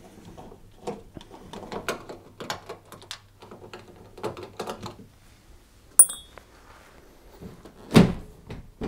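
Small clicks and scrapes of screws being undone at the back of a Hoover tumble dryer's top panel. A sharp metallic ping comes about six seconds in, then a loud thump near the end as the top panel is shifted to free it.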